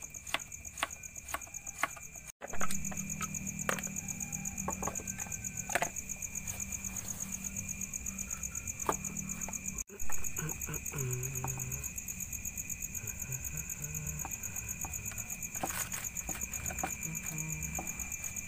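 Night chorus of crickets and other insects chirping in a steady, fast-pulsing trill, with scattered light taps of a knife on a wooden cutting board.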